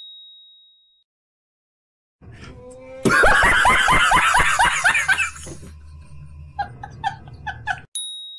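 A man laughing loudly in quick bursts starting about three seconds in, tailing off into softer laughs. A short bright ding rings out at the start and again near the end.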